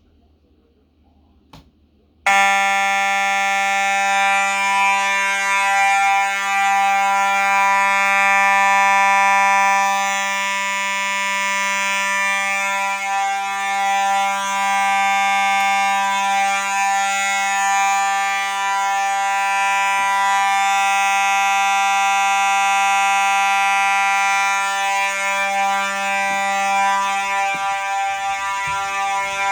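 Simplex 4903-9219 fire alarm horn sounding. It starts suddenly about two seconds in and then runs as one loud, buzzy, continuous tone without breaks. A faint click comes just before it starts.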